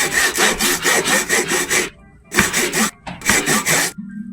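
Rapid back-and-forth scraping strokes, like sawing, in several bursts separated by short pauses.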